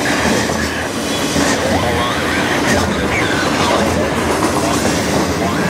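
Double-stack intermodal container train rolling past, its well cars' steel wheels clattering steadily over the rails, with faint wheel squeals now and then.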